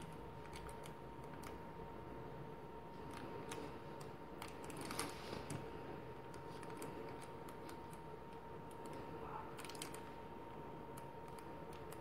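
Faint, irregular clicks and soft rustling of hands tying a macramé square knot in thick 6 mm cotton cord.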